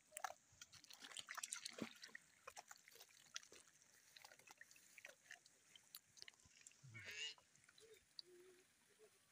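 Faint, scattered splashes and squelches of hands working through mud and shallow water to pick out stranded fish, with one louder splash about seven seconds in.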